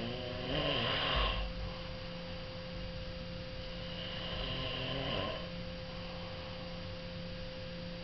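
Snoring: two long snoring breaths about four seconds apart, each with a low buzzing rattle, over a steady hum.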